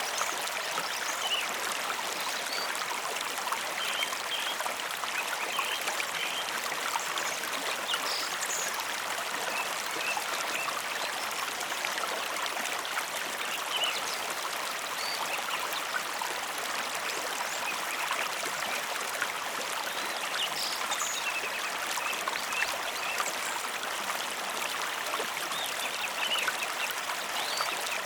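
Mountain river flowing: a steady, even rush of water, mostly hiss with little low rumble.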